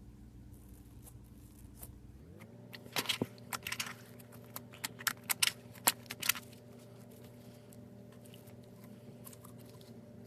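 A scattered run of small sharp clicks and crackles, densest between about three and six and a half seconds in, over a steady low hum that steps up in pitch about two seconds in.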